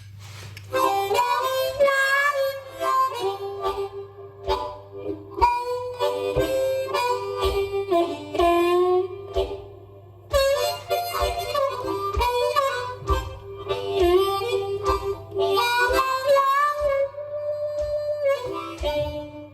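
Blues harmonica in G playing a bending melody over the steady low hum of a running coffee machine, which drones in the same key.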